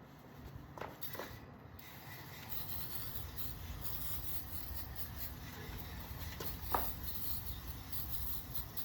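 Aerosol can of foam coil cleaner spraying onto an air-conditioning condenser coil: a steady hiss that strengthens about two and a half seconds in, with a single click about two-thirds of the way through.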